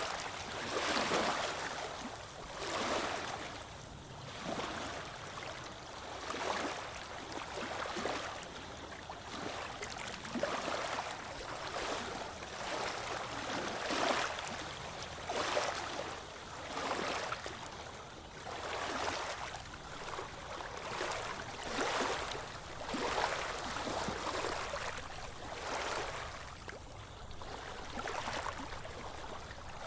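Small ocean waves lapping and washing on a beach, each little surge hissing in and fading, about one a second.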